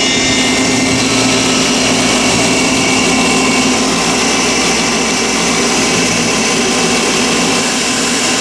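3 HP rotary screw air compressor running steadily as it builds air pressure toward about 100 PSI.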